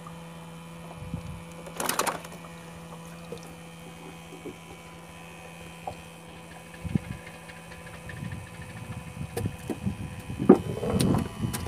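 Water bubbling in an aerated live-bait bucket over a steady low hum, with a brief sharp noise about two seconds in as the bait is taken from the water. Irregular handling knocks and rustles follow near the end.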